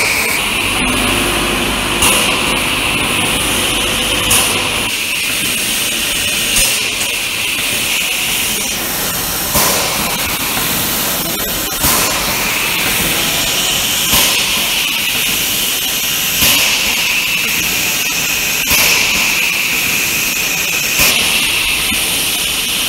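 Factory packing machinery running with a steady hiss and a short louder burst about every two seconds, in a regular cycle.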